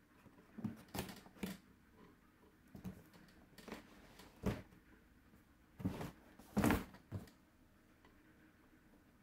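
Unboxing handling sounds: a box and its packaging being opened and handled, making irregular knocks, scrapes and rustles, the loudest about six and a half seconds in.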